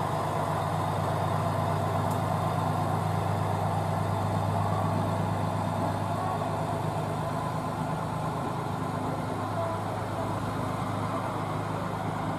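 A JR West KiHa 120 single-car diesel railcar's engine running steadily as the car moves slowly over the points, a low even hum that eases slightly near the end.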